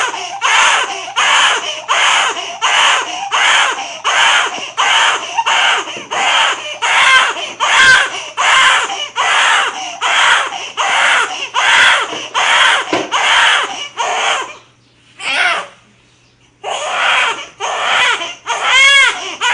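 Newborn baby crying in short, evenly repeated wails, about one and a half a second. Midway the crying breaks off for about two seconds, with one short cry in the gap, then starts again.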